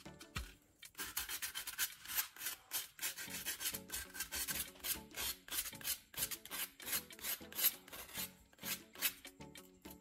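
Sandpaper rubbing in rapid rasping strokes against the cut edge of an aluminium can bottom, smoothing it; the strokes start about a second in.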